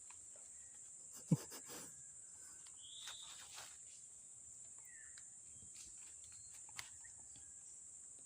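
Steady high-pitched insect buzz of a rural riverside, with a few short chirps over it and one sharp knock about a second in.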